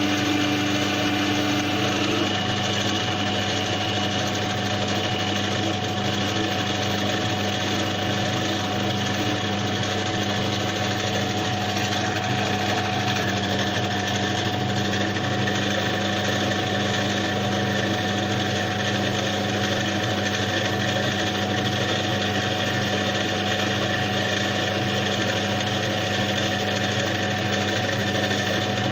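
A small electric power tool runs steadily through the cleaning of a starter motor's burnt commutator. A higher tone in the hum drops out about two seconds in.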